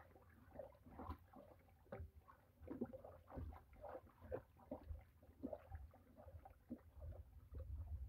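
Faint, irregular sloshing and squelching of a wet rice-husk and chicken-meat slurry stirred with a wooden paddle in a large metal pot as it boils.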